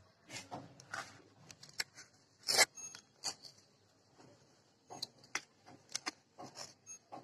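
Hands working dry, gritty soil around plant cuttings: irregular crunching, scraping and small clicks of grit, with one louder crunch about two and a half seconds in.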